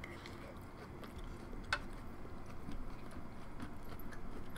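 Quiet chewing with soft mouth clicks and one sharper click a little under two seconds in.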